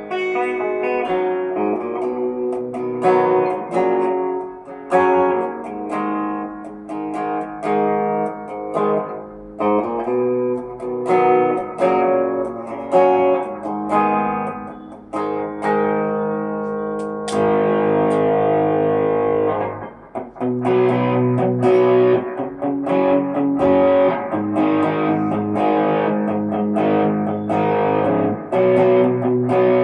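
Tokai Love Rock LS214 Les Paul-style electric guitar played as a run of picked notes and chords. A brighter chord rings out for a few seconds past the middle before the note lines resume.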